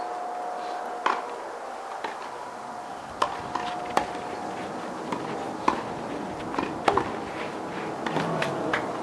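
Tennis balls being hit and bounced on an outdoor court: scattered sharp knocks at irregular spacing, roughly one or two a second.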